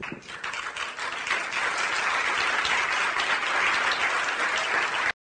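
Audience applauding: many hands clapping, building up over the first second into a steady, dense applause that cuts off suddenly near the end.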